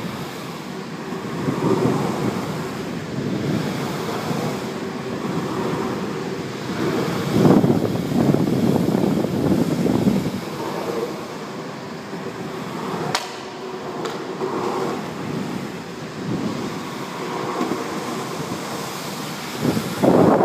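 Longboard wheels rolling over a concrete parking-garage deck: a steady rumble that swells and fades as the board speeds and slows, with wind rushing over the microphone. A single sharp click comes about thirteen seconds in.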